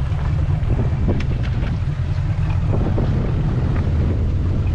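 Boat underway at speed through choppy water: a steady low engine drone under heavy wind noise on the microphone, with short splashes of water against the hull.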